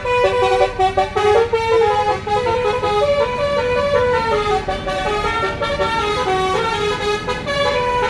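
A tour bus's basuri telolet horn playing a quick melody of stepping notes, over a steady low rumble.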